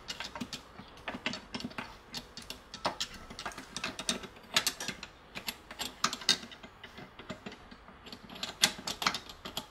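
Metal parts of a Peugeot BE4 gearbox clinking and knocking as a shift fork and the gear shafts are worked into the casing by hand: irregular small clicks and taps, with a few sharper knocks about halfway through and near the end.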